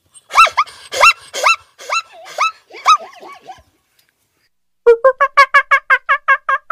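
Zebra calling: a series of about six loud, high barking calls. After a short pause, a fast run of short repeated animal calls follows, about seven a second.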